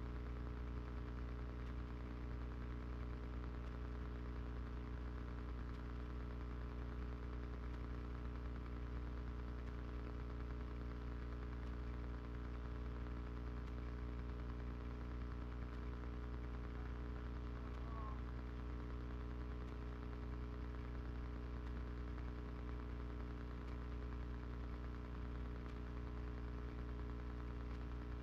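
Steady electrical hum with a little static, picked up through a camera's audio lead plugged into a faulty aircraft intercom jack.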